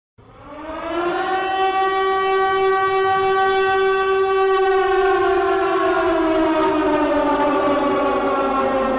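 Civil defense air-raid siren sounding a missile-attack warning: it starts up with a quick rise in pitch, holds a steady wail, then slowly falls in pitch over the last few seconds.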